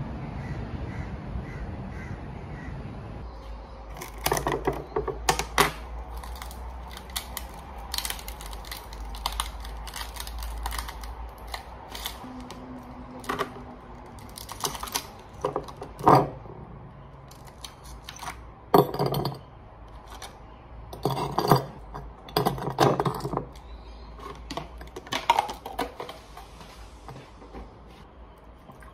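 Ice cubes being worked free and dropped into a glass mason jar: irregular clatters and clinks, some single and some in quick runs, with the loudest knocks in the second half.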